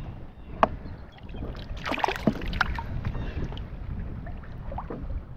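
Lake water splashing and sloshing as a muskie is held in the water alongside the boat to revive it for release: one sharp splash about half a second in and a cluster of splashes around two seconds in, over a low rumble of wind on the microphone.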